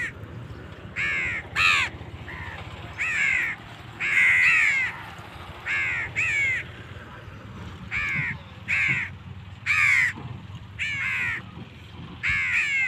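Crows cawing over and over: short harsh calls about one a second, some in quick pairs.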